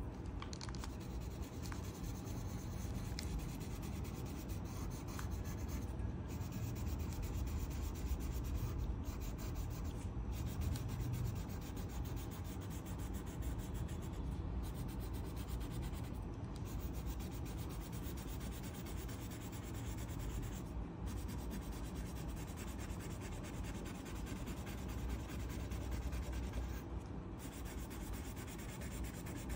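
A colouring pencil rubbing steadily back and forth on paper as the drawing is shaded in.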